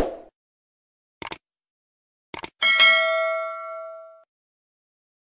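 Subscribe-button animation sound effect: a short pop, two mouse clicks about a second apart, then a notification-bell ding that rings out for about a second and a half.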